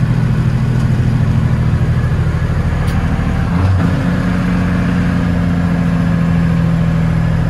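Big Cam Cummins inline-six diesel of a 1989 Peterbilt 379 running under load while the truck drives, heard from inside the cab. The engine note changes about three and a half seconds in, then holds steady at a slightly higher pitch.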